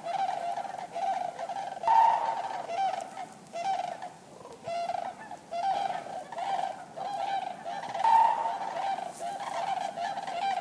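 Common cranes giving loud trumpeting calls, one after another and overlapping, like several birds calling together. Two calls stand out louder, about two seconds in and again near eight seconds.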